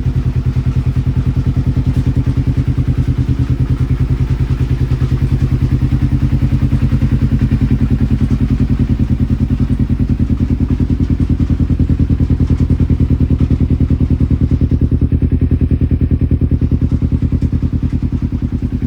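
2009 Kawasaki Ninja 250's parallel-twin engine idling steadily with an even, fast exhaust pulse.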